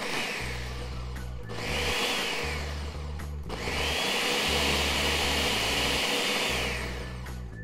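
Countertop blender pulsed, whipping feta cheese into a thick dip: two short bursts, then a longer run of about three seconds. The motor whine rises at the start of each burst and falls away at the end.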